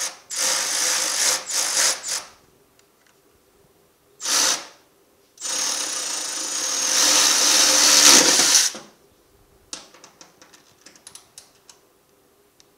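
Milwaukee cordless ratchet running a chassis ground bolt in, in short bursts. There are two quick runs, a brief one, then a longer run of about three seconds that gets louder toward its end as the bolt is tightened. A few light clicks follow near the end.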